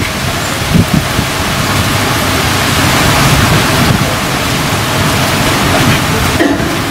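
Dust-storm wind with light rain, a steady loud rush through the trees, with gusts buffeting the microphone.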